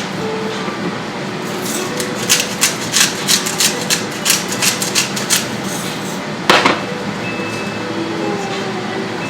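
A quick run of about fifteen sharp knocks, some four a second, then one louder knock about a second later, over a steady background hiss: kitchen knocks during food preparation.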